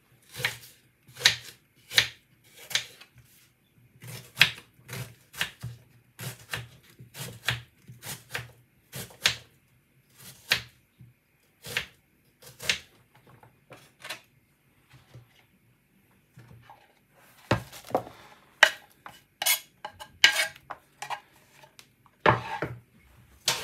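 Kitchen knife chopping a white onion on a wooden cutting board: sharp knocks about one or two a second, easing off around the middle, then quicker clusters of knocks and clicks near the end.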